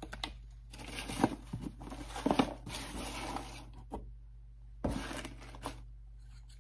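Rustling and handling noise as a small black fabric pouch holding reusable straws and its wrapping are worked open by hand, in two stretches with a few sharp clicks.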